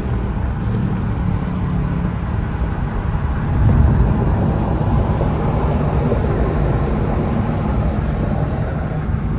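2018 Mercedes-AMG E43's twin-turbo V6 running at cruise, with tyre and road noise from the moving car. The sound swells briefly about four seconds in.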